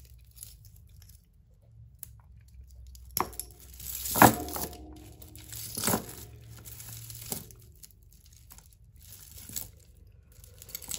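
Hands working through a tangled pile of costume jewellery: beaded necklaces and metal chains rustle and rattle in a few short bursts, the loudest about four and six seconds in.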